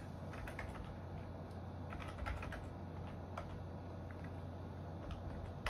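Typing on a computer keyboard: a run of light, irregular key clicks as a web address is entered, over a steady low hum.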